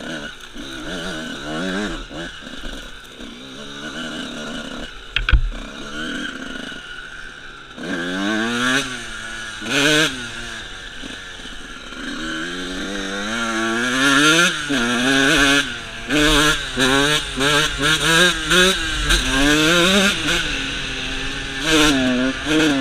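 Suzuki RM125's 125cc two-stroke single-cylinder engine revving up and down while the dirt bike is ridden, its pitch rising and falling over and over, in quicker, shorter swells in the second half. A sharp knock about five seconds in.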